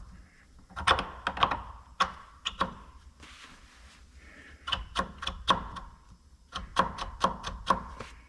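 Small metal parts of a magnetic base clicking and clinking as they are handled and fitted together during reassembly: several quick groups of sharp clicks, the busiest about a second in, around five seconds in and near the end.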